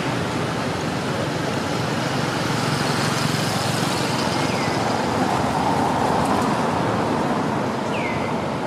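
Steady outdoor background noise like distant road traffic, with a few short falling chirps over it.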